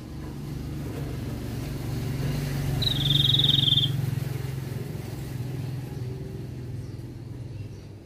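A motor vehicle passing: a low engine hum swells to a peak mid-way and fades again. Over it, a bird gives a single steady high whistled note about a second long, about three seconds in.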